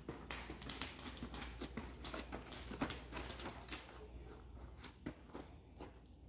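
A horse's hooves and a child's boots stepping at a walk on sand arena footing, an irregular patter of soft taps that thins out as the pair come to a halt near the end.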